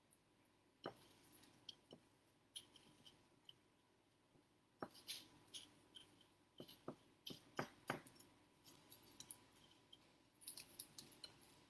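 Near silence broken by scattered faint clicks and light taps of kitchen utensils being handled during food preparation.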